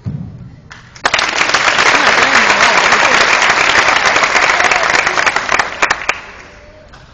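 Audience applause that breaks out suddenly about a second in, holds loud and dense for about five seconds, then dies away.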